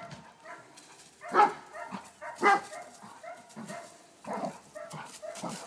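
Giant Schnauzer barking in a rapid series of short barks, the two loudest about a second and a half in and a second later. It is a guarding dog's defensive barking at a stranger approaching the fence line.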